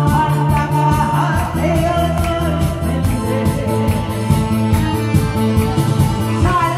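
A woman singing into a microphone over a recorded backing track with a steady beat.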